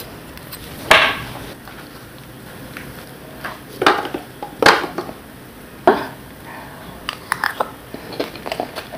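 Metal spoon clinking against a steel serving plate while scooping dahi fuchka: four separate sharp clinks, then a run of smaller clicks near the end.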